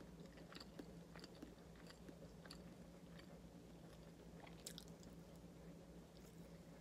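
Faint chewing of soft cooked banana, with small scattered mouth clicks over a steady low hum.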